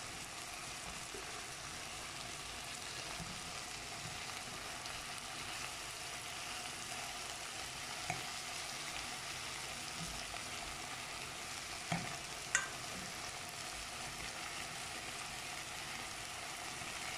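Sausages and sliced onions frying in a pan: a steady sizzle, with a few short clicks as a metal fork turns the sausages, the loudest two close together about two-thirds of the way through.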